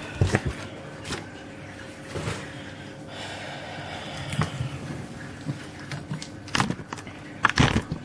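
Handling noise from a cardboard shipping box and a clear acrylic enclosure: scattered light knocks and taps, with the loudest cluster near the end, over a faint steady hum.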